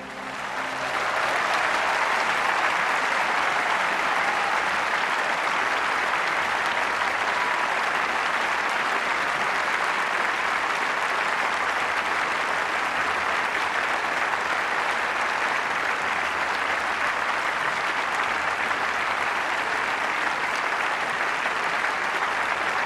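A large audience applauding, swelling up within the first second and then holding steady.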